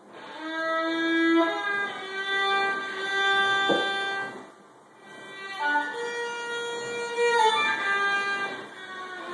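A child playing the violin from sheet music: a slow melody of held bowed notes in two phrases, with a short break about halfway through.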